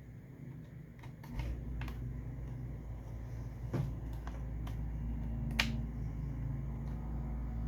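Scattered sharp clicks and taps of small tools and laptop parts being handled, about five in all, over a steady low hum that starts about a second and a half in.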